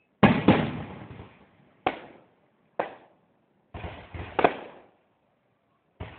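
Fireworks going off: about eight sharp bangs at uneven intervals, some in quick pairs, each dying away in a short echo.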